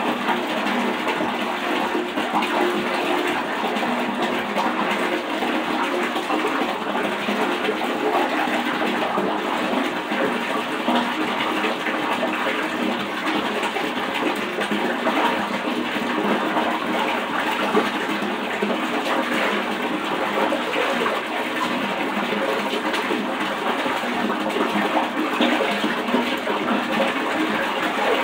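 Water running steadily into a bathtub, a continuous even rush.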